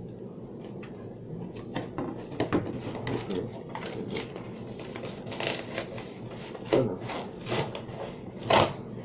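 Cardboard box being handled and worked open, rustling and scraping with scattered short knocks, the loudest two near the end.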